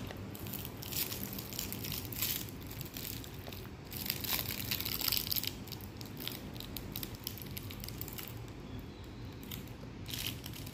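Foil candy wrapper crinkling and rustling in a child's fingers as it is twisted open. It comes as a run of small crackles, thickest about four to five seconds in and again near the end.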